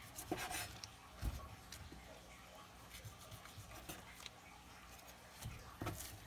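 Chef's knife cutting and trimming a thick dry-aged beef rib steak on a wooden cutting board: faint scraping strokes with a few light knocks.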